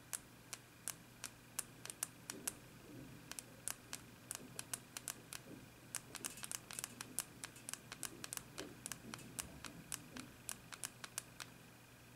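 Side buttons (volume-up and power keys) of an Alcatel Pop 4+ smartphone pressed over and over, a long run of faint, sharp clicks at irregular spacing, several a second. The keys are being pressed together repeatedly to bring up the Android recovery menu from the 'No command' screen.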